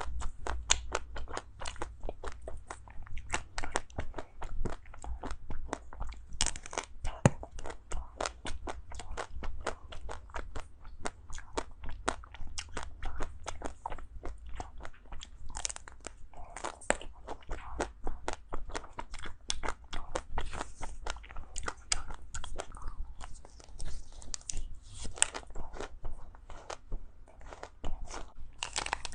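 Close-miked mouth sounds of biting and chewing crunchy ice cream: a dense, irregular run of sharp crunches and crackles.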